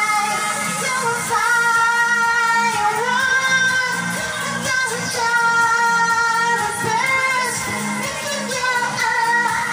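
A woman singing a pop song into a microphone over a backing track with a steady beat, holding long notes that step up in pitch a few times.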